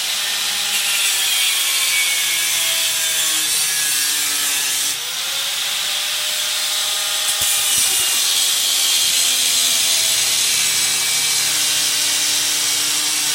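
Electric angle grinder running with its disc grinding through the steel pin head on a Porsche 996 window regulator: a loud, steady, hissing grind. The motor pitch wavers under load and eases off briefly about five seconds in.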